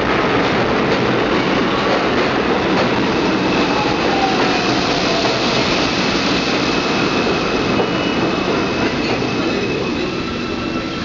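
New York City subway train running into the station alongside the platform, a steady loud rumble and rattle of wheels on rails with a faint high wheel squeal. It quietens near the end as the train slows to a stop.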